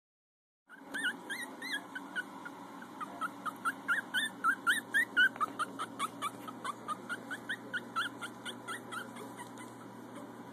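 Very young puppies squeaking and whimpering in a rapid run of short, high-pitched cries, about two to three a second. The cries are loudest in the middle and thin out near the end.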